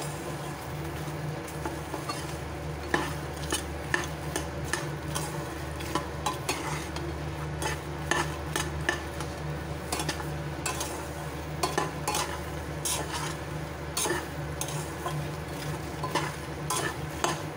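A metal spatula stirring and scraping makhana (fox nuts) around a steel kadhai, with irregular light clinks and scrapes and the rattle of the roasting nuts. A steady low hum runs underneath.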